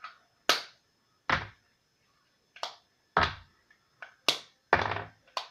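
Small plastic toy pieces set down one after another on a tabletop: a string of about eight sharp, uneven clacks.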